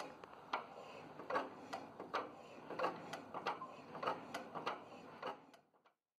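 Light mechanical clicks, roughly two a second and a little uneven, from the freshly freed injection pump of a single-cylinder air-cooled Petter diesel as it is worked and pumps fuel out of its outlet. The clicking stops short near the end.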